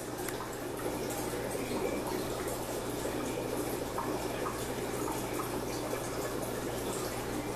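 Aquarium water bubbling and trickling steadily, over a low steady hum.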